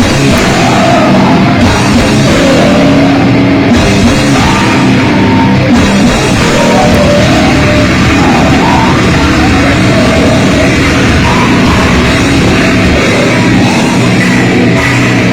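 A live heavy-metal band playing loud and without a break: a dense wall of guitars and drum kit.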